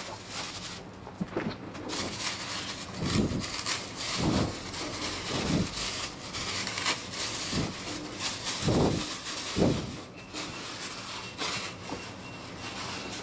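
Plastic bag crinkling and rustling as it is pulled off a boxed subwoofer, with cardboard handled alongside. Heavy breaths close to the microphone come about once a second, and a car is heard in the background.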